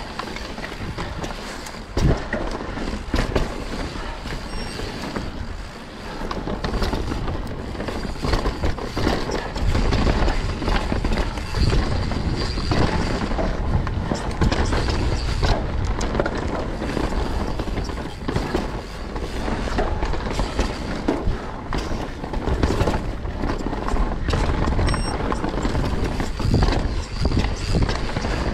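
Mountain bike ridden fast down a dry dirt-and-root trail: tyres rolling and scrubbing over the dirt, with the chain and frame rattling and knocks as the wheels hit roots and rocks, under a steady rumble of wind on the microphone. A sharp knock stands out about two seconds in.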